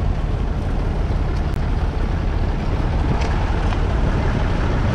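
1963 Massey Ferguson 35X's 2.5-litre three-cylinder diesel engine running steadily under load while pulling a two-furrow mounted plough through the soil.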